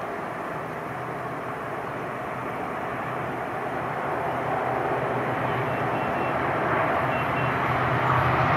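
WDP4 diesel-electric locomotive approaching under power, its EMD two-stroke diesel engine running with a steady low hum over the rumble of the train, growing steadily louder as it nears.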